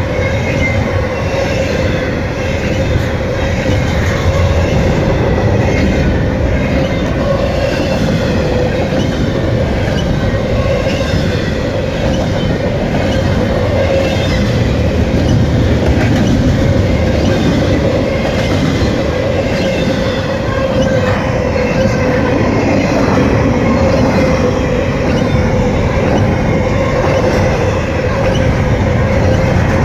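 CSX double-stack intermodal freight cars rolling past: a steady rumble and clatter of steel wheels on rail, with a steady squealing tone from the wheels running through it.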